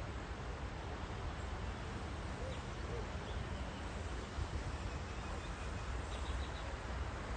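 Outdoor nature ambience: a steady rush of wind on the microphone with a low rumble, and faint bird chirps, a quick run of them near the end.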